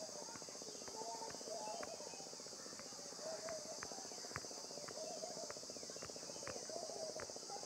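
Faint steady high-pitched background noise with scattered soft ticks and a faint wavering sound about once a second.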